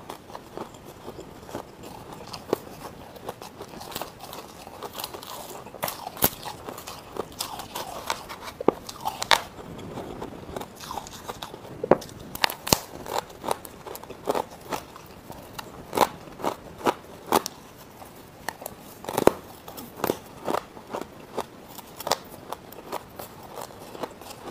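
Biting and chewing mouthfuls of crushed frost ice and thin ice pieces: a run of sharp, crackling crunches, louder and more frequent in the second half.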